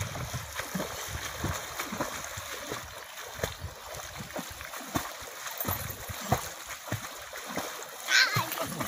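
Water splashing and sloshing in uneven strokes as a person swims in a farm pond. Near the end comes a short, high call.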